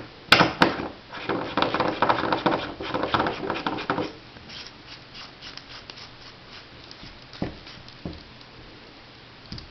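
Small metal parts of a paintball marker's bolt assembly clicking and rattling as they are handled and fitted back together, busiest in the first four seconds, then a few faint ticks and a couple of single clicks.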